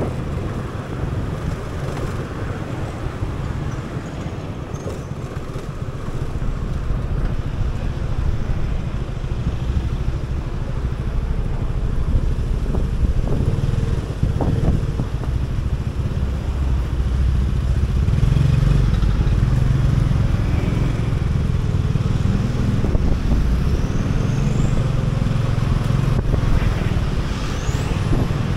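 Motor scooter riding through city traffic: a steady low rumble of its engine and the air rushing past, growing louder about halfway through, with cars and motorbikes alongside.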